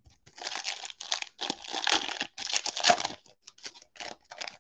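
Foil wrapper of a 2020 Donruss football trading card pack crinkling and tearing as it is ripped open by hand. A dense run of crackles fades into a few sparse ones near the end.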